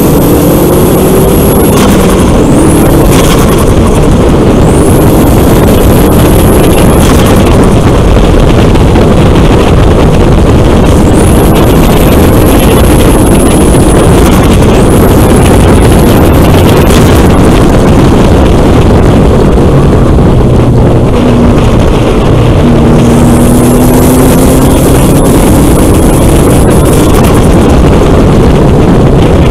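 Volkswagen Golf GTI Mk4's 1.8-litre turbocharged four-cylinder engine driven hard on track, its note rising and falling through the gears, with a high turbo whistle that sweeps up and holds each time it accelerates, about six times. Heavy wind and road noise run underneath.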